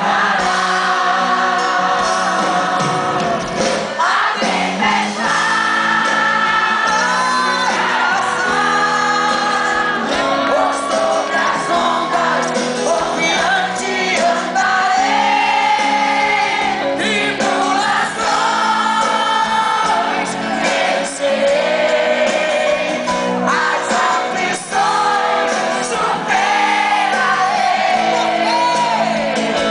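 Live gospel song: a singer's voice over instrumental backing, amplified in a large hall.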